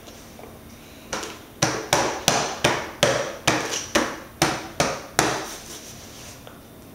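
A rapid series of about a dozen sharp knocks, two to three a second, beginning about a second in and stopping a little after the five-second mark.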